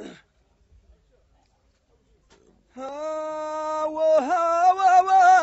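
After a pause, a man's solo voice starts singing about three seconds in. It holds one long note, then wavers and bends in pitch: the opening of a sung line of Amazigh metered poetry.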